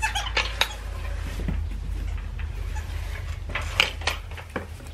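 A water bowl being handled: a few sharp knocks and clatters, the loudest near the end, over a low steady rumble.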